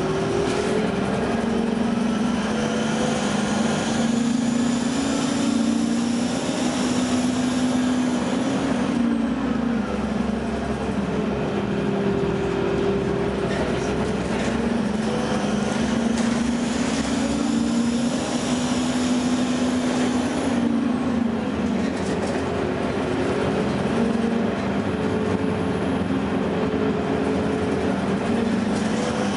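A 2009 Gillig low-floor hybrid bus driving, with its Allison EP40 hybrid drive and Cummins ISB diesel running over road noise. A pitched whine rises as the bus speeds up and falls away, twice.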